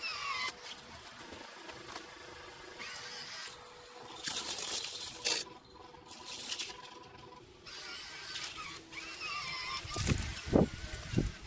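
Outdoor ambience: birds chirping, with a high hiss that comes and goes, and a few low thumps and rumbles near the end.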